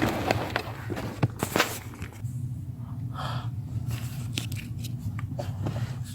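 Knocks and rattles of hand work under a car's dashboard, clustered in the first two seconds. A steady low hum runs underneath, with a few short breathy sounds later on.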